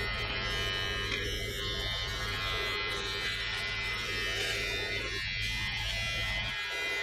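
Braun BT5265 beard trimmer running with a steady electric buzz as it is pushed through long hair on the scalp.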